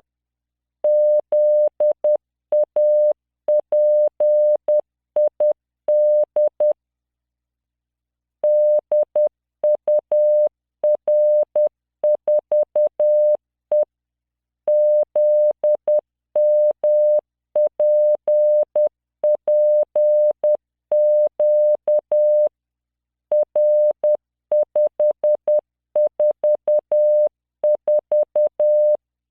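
Morse code at 10 words per minute: a single 600 Hz tone from the LearningMorse CW training software, keyed on and off in dots and dashes that spell random five-character code groups. A pause of about a second and a half comes about seven seconds in.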